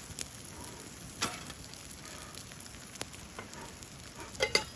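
Beef tongue with salted green onion sizzling on a hot iron griddle plate over a campfire: a steady hiss with a few sharp clicks, the loudest cluster near the end.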